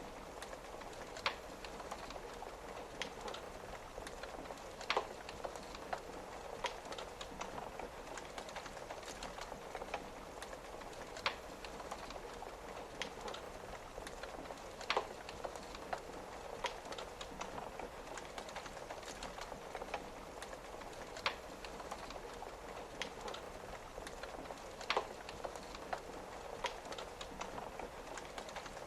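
Wood fire crackling, with sharp pops every second or two, over a steady patter of rain on a window.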